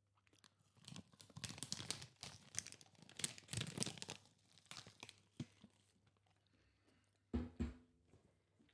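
Crispy Japanese convenience-store fried chicken being bitten and chewed close to the microphone, crackling crunches for about four seconds, then a few more crunches.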